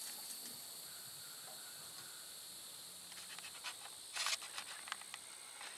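Faint steady high-pitched drone of insects, with a few light clicks about four seconds in.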